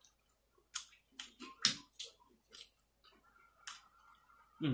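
Eating sounds close to the microphone: chewing and mouth smacks on pancake, mixed with scattered clicks of a fork against the plate, the sharpest about one and a half seconds in.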